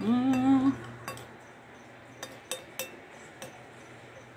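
A short closed-mouth hum, like an 'mmm', at the very start, the loudest sound. After it, a metal spoon clinks against the bowl about five times as it scoops up farofa.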